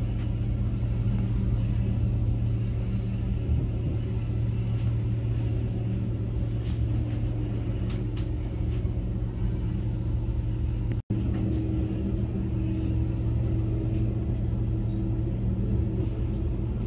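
Steady running rumble and low drone heard from inside a moving passenger train. The sound drops out completely for an instant about eleven seconds in.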